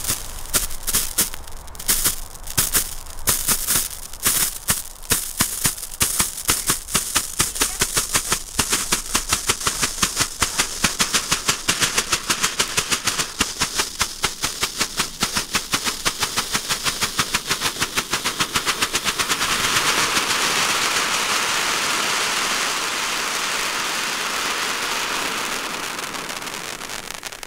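Small cone fountain firework burning: sharp crackling pops, a few a second at first, that speed up into a dense rapid crackle. About twenty seconds in this gives way to the steady hiss of a silver spark fountain, which fades near the end.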